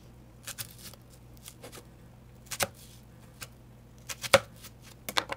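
Kitchen knife cutting into a whole raw onion around its root: several short, crisp cuts at uneven intervals, the loudest about four seconds in.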